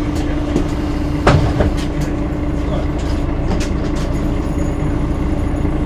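Interior of a moving city bus: steady low rumble with a constant hum, and a couple of sharp rattling knocks about a second in.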